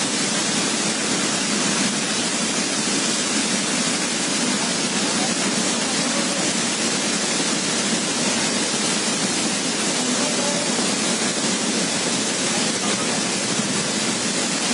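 Charppa waterfall's water falling in a steady, even rush of noise that does not change.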